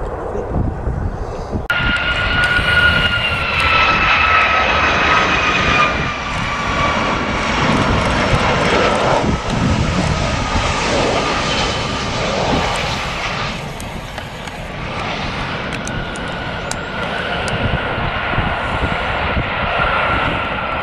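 Jet roar from a Boeing 757-200's Rolls-Royce RB211-535E4 turbofans on final approach and landing, with a high whine that falls slowly in pitch. The sound changes abruptly a couple of seconds in and again about two-thirds of the way through, and the whine comes back fainter near the end.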